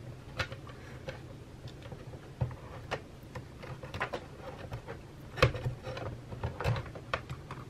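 Irregular small clicks and knocks as a Mac mini (Mid 2011) logic board is worked and slid out of its aluminium unibody case, the loudest knock about five and a half seconds in.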